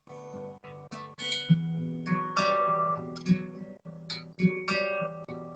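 Solo acoustic guitar playing the introduction to a song, with plucked and strummed chords ringing out one after another.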